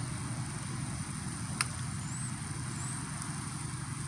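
Steady low rumble of motor vehicle traffic, with a single sharp click about a second and a half in.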